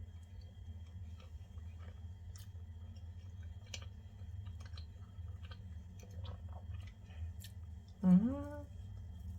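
A person chewing a soft protein roll dessert, with small wet mouth clicks. About eight seconds in comes one short, loud, voiced "mm" of approval whose pitch rises.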